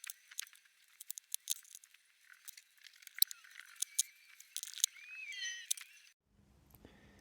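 Irregular sharp metallic clicks and taps of a combination padlock's small internal parts being worked loose with tools, with a brief squeak about five seconds in. The clicks stop about six seconds in, leaving a faint hum.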